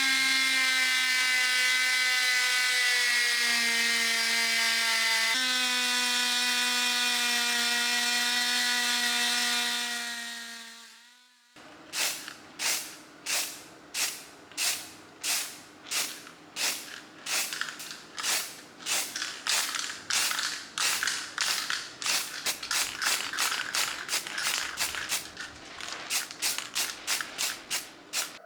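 A power tool runs with a steady whine, its pitch sagging slightly now and then, and fades out about ten seconds in. Then come rhythmic scraping strokes, about two a second, like hand sanding or filing on metal.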